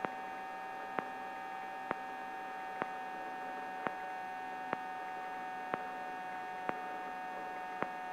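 Eurocopter AStar helicopter heard from the cockpit through the intercom while hovering: a steady turbine and gearbox whine made of several even tones, with a short sharp click about once a second.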